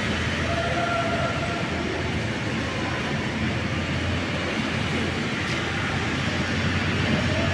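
Electric overhead crane hoist running during a load test with a concrete slab on the hook: a steady mechanical rumble with a low hum, and a faint brief whine about a second in and again near the end.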